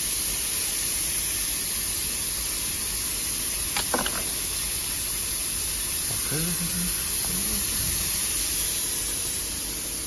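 Steady hiss of a running bottle filling, plugging and capping line, with one sharp clink about four seconds in.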